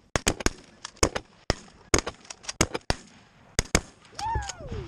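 Volley of shotgun fire from several hunters shooting at geese: a rapid, irregular string of about fifteen shots over a few seconds. Near the end a Canada goose gives one honk that falls in pitch.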